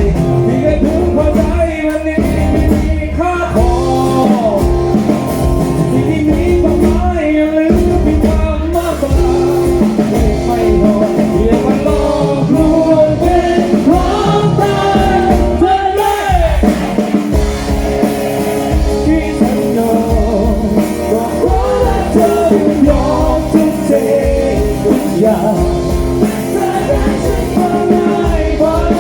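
A Thai pop-rock song played by a band, with a lead singer over a steady drum beat and guitar.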